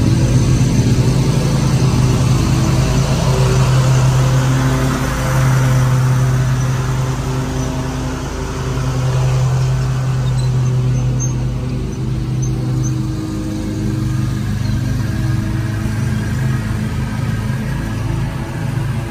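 Ferris Z1 36-inch stand-on mower's engine running steadily while mowing, its drone swelling and fading as the machine moves about the yard.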